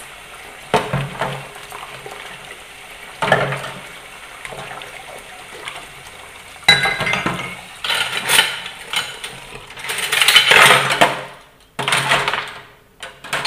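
Cups, spoons and knives clinking and knocking against each other and the sink as they are hand-washed in a basin of soapy water, with water splashing. The clinks come singly a second or more apart, with a longer rush of splashing and clatter about ten seconds in.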